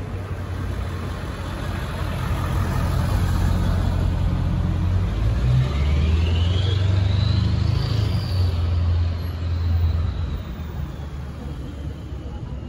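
Road traffic passing close by: car and heavier vehicle engines and tyres, the rumble swelling through the middle and easing off near the end. A faint high whine rises and then slowly falls as a vehicle goes by.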